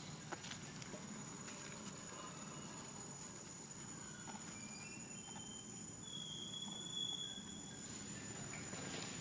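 Outdoor ambience: a thin, steady high-pitched insect tone over a low background rumble, with faint ticks and rustles and a short whistled call about six seconds in.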